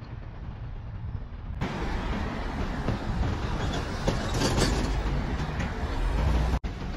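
Road traffic noise from a busy highway: a steady low rumble and tyre hiss of passing cars and trucks. It gets louder after about a second and a half, swells briefly in the middle, and cuts out for a moment near the end.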